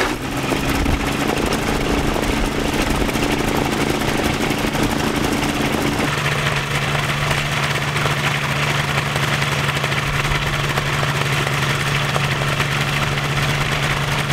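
Ultralight aircraft's propeller engine idling steadily on the ground; about six seconds in its note drops to a lower, stronger hum.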